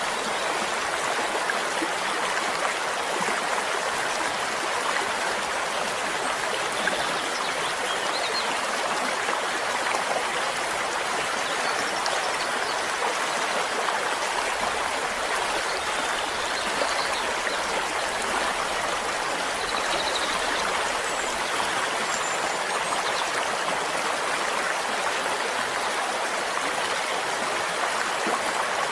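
A stream flowing steadily: an even, continuous rush of running water.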